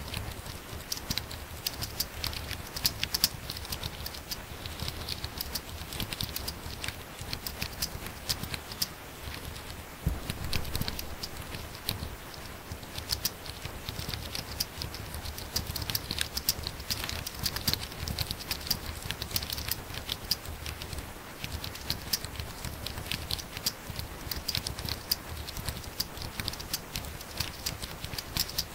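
Fast, continuous typing on a laptop keyboard: dense, irregular key clicks with a few brief pauses.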